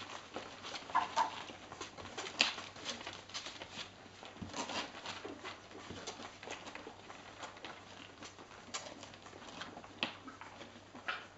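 A litter of two-week-old Cardigan Welsh Corgi puppies nursing from their mother: many small wet sucking and smacking clicks, with a couple of short squeaks about a second in.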